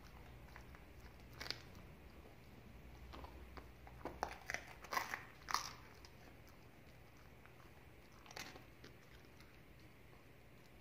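A dog biting and chewing a piece of buttery brioche bread: faint crisp crunches, one about a second and a half in, a quick cluster of several between about four and six seconds, and another near eight and a half seconds.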